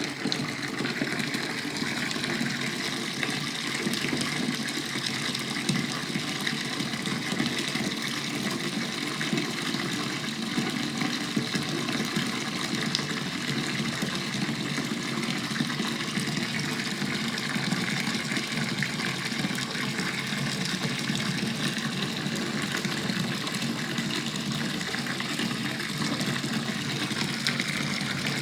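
Water running steadily from a tap into a filling bathtub.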